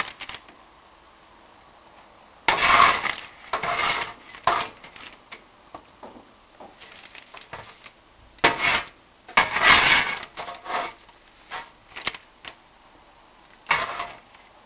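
Baking paper rustling and crinkling in several short bursts as roasted zucchini slices are tipped off the sheet into a frying pan of sautéed vegetables.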